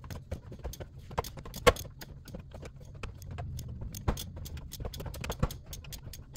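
Irregular metallic clicking and clinking from a wrench on the crankshaft bolt as a 1KZ-TE turbodiesel is turned over by hand to check the timing marks, with a few louder knocks.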